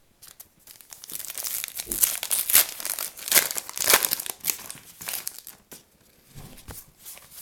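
Trading-card pack wrapper crinkling and tearing as it is ripped open and handled, loudest in the middle and dying down to a few light rustles near the end.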